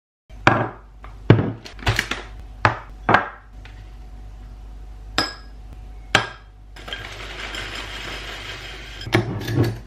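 A spoon knocking against a ceramic bowl and yogurt pot, several sharp clinks in a row, as skyr is scooped out. About two-thirds of the way through, a steady rustling hiss of dry muesli poured from a paper bag into the bowl, followed by a few more knocks near the end.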